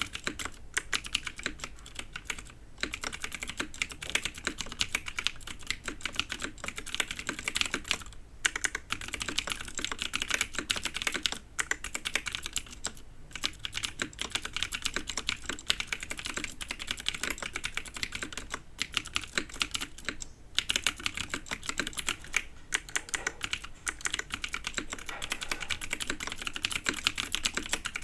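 Typing on a TX 60 mechanical keyboard with clicky, lubed and filmed Cherry Vintage Blue / Gateron Melodic switches on an aluminum plate, GMK keycaps: a fast, steady run of sharp key clicks, with a few short pauses.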